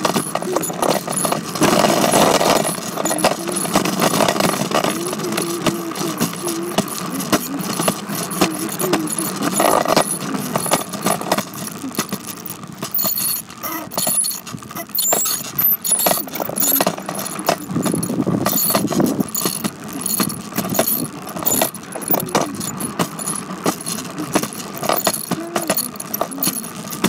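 Bicycle rattling and clicking as it is ridden over a bumpy surface: a continuous, dense clatter of small knocks.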